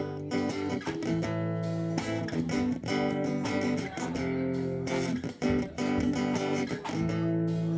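Guitar playing sustained, changing chords in an instrumental passage with no singing.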